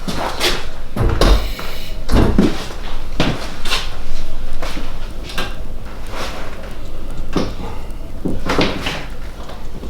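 Handling noises of a hands-on back treatment: irregular knocks, bumps and rustling as bodies shift on a treatment table, with a heavier thud about a second in.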